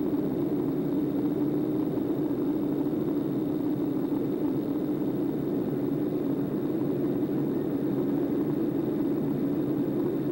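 Jet airliner in flight, heard from inside the cabin: a steady, even rushing drone of engine and airflow noise that does not change.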